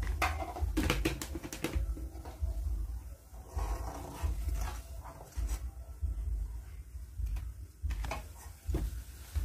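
Baby monkey making small whimpering and panting sounds, among short clicks and knocks.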